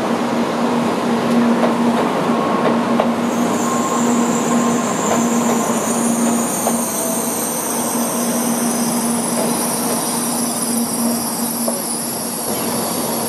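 N700A-series Shinkansen train rolling past, with steady wheel and running noise and a few clicks over rail joints. A high, thin wheel squeal sets in about three seconds in and holds until the last car has passed.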